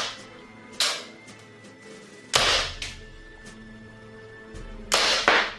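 Gas blowback airsoft pistol, a green-gas Armorer Works M712 broom-handle Mauser copy, firing single shots into a chronograph: four sharp pops with the slide's clack, the last two close together. Background music runs underneath.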